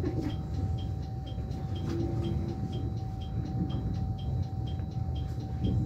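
JR West 103 series electric commuter train heard from its cab: a steady low rumble with an even hum, and a faint high tick repeating about twice a second.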